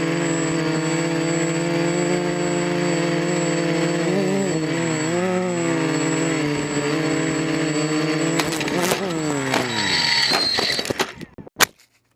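XAircraft X450 quadcopter's electric motors and propellers whining steadily. The pitch wavers up and down about four to six seconds in, then falls as the motors spin down, with a few knocks, and the sound cuts off just before the end.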